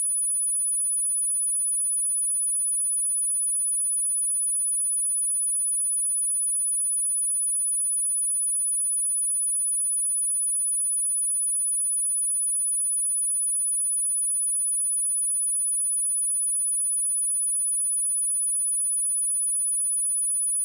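A pure 9908 Hz sine-wave test tone, one steady high-pitched whistle held at an unchanging level, used to test speakers and headphones and to shake water and dust out of a speaker.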